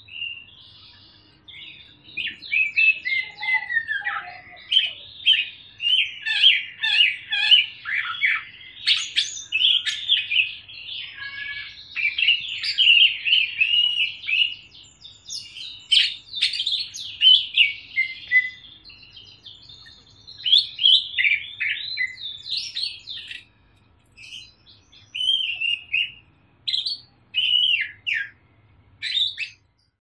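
Caged Sumatran cucak ijo (greater green leafbird) singing its fast, chattering "ngriwik" song: rapid high twittering phrases run almost without a break, then come as shorter separate bursts with gaps for the last several seconds.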